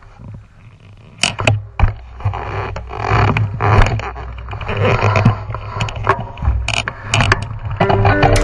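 Mountain bike ridden fast over leaf-littered forest singletrack, heard from a camera on the bike: tyre noise over dry leaves and twigs, sharp clicks and knocks as the bike rattles over bumps, under a steady low rumble. Guitar music comes in near the end.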